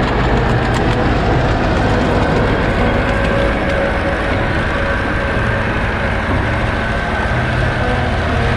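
Tractor engine running steadily, a loud, even, low drone that holds level throughout.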